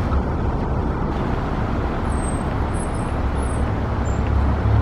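Wind buffeting the microphone outdoors: a steady low rumble under a rushing hiss. A few faint, high chirps come in the middle.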